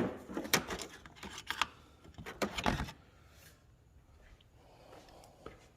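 Flat-blade screwdriver prying the metal retaining clip off the lower ball-stud end of a hood strut: a run of sharp clicks and scrapes in the first three seconds, then a small click near the end.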